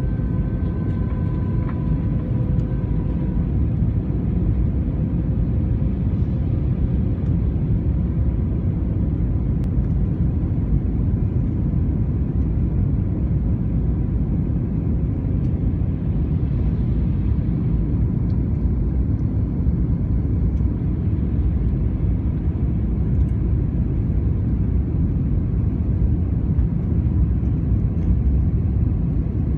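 Steady low rumble of an airliner's cabin on approach to land, engines and airflow over the extended flaps heard from inside. A faint steady tone sits over it for the first three seconds, then fades.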